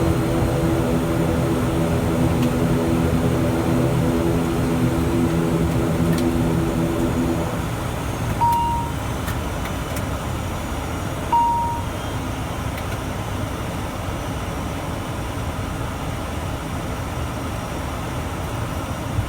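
Steady drone of an ATR 72's turboprop engines, which stops about seven seconds in, leaving a steady rushing noise. Two short high beeps sound about three seconds apart after the drone ends.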